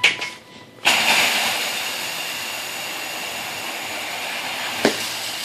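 A steady rushing hiss with a faint steady whine in it starts suddenly about a second in and holds even, with one sharp click near the end.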